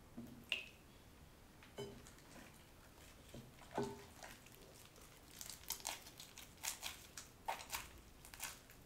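Sticky cooked rice dough squelching and tearing as fingers pinch off pieces and set them down, a string of soft, irregular squishes and light taps, coming thicker in the second half.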